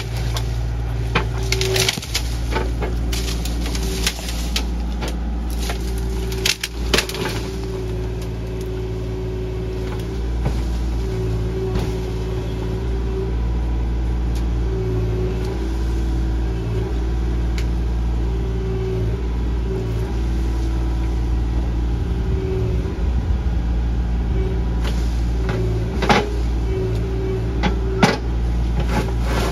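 Small excavator's engine running steadily under load, with a whine that comes and goes as the hydraulics work, while its bucket rips out a shrub. Branches crack and snap several times, around the start, about seven seconds in, and twice near the end.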